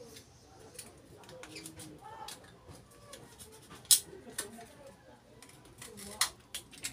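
Scissors snipping a few times, the sharpest snip about four seconds in, with soft handling and rustling between the cuts.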